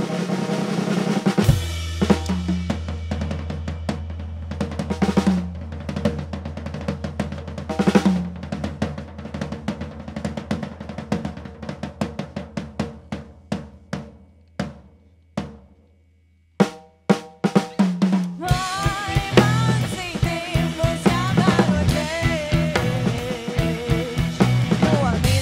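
Rock band drum kit playing rolls and fills with snare and bass drum over a held low bass note; the hits thin out and stop almost completely about two-thirds of the way through. Then the full band comes in near the end.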